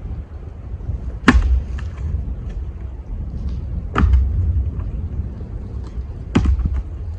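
Three heavy wooden thuds about two and a half seconds apart, as firewood rounds are dropped or thrown down, the first the loudest. Under them runs a steady low rumble of wind on the microphone.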